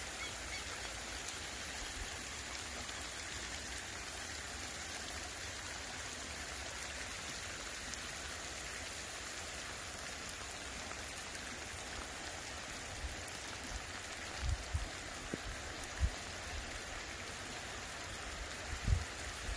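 Steady rain falling on bare ground, with a few short low thumps in the last few seconds.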